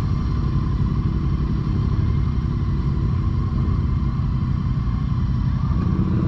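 Motorcycle engines idling and ticking over at low speed as the bikes ease forward, a steady low running sound with no revving.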